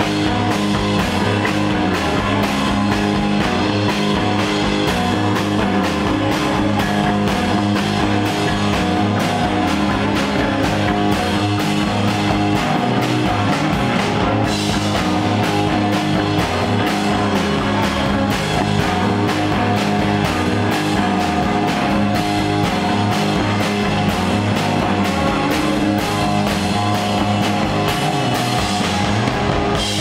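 Live stoner-rock band playing an instrumental passage: electric guitars, bass guitar and a drum kit with steady cymbal strokes, loud and continuous.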